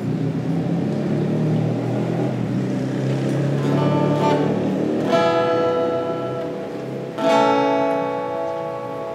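Acoustic guitar: a few soft notes, then two full chords strummed about two seconds apart, each left to ring out and fade.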